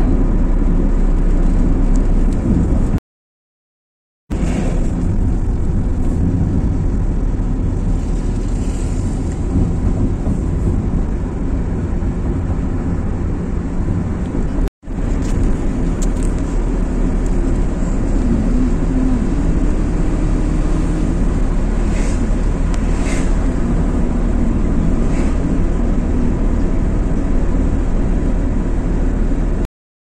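A moving car's engine and road noise, a steady low rumble. It drops out to silence twice, for about a second some three seconds in and for an instant near the middle.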